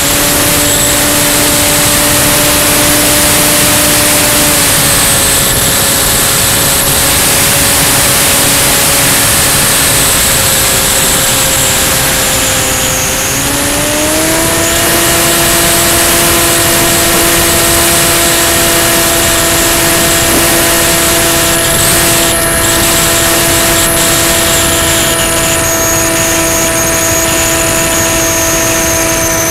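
Onboard sound of an FPV RC model plane's electric motor and propeller: a steady droning whine under heavy wind rush on the camera microphone. The pitch rises about halfway through as the throttle is opened, then holds steady.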